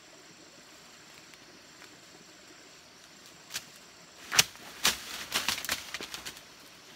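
A bundle of leafy branches swung hard at a wasp nest in a tree stump: a single swish about three and a half seconds in, two loud strikes a second later, then a quick flurry of swishing, thrashing blows.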